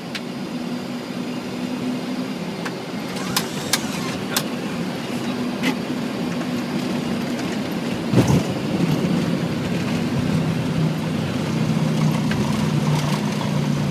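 Boeing 737 on landing rollout, heard from the cockpit: a steady rumble of engines and wheels on the runway. There are a few sharp clicks about three to four seconds in and a thump about eight seconds in, after which the engine hum grows a little stronger.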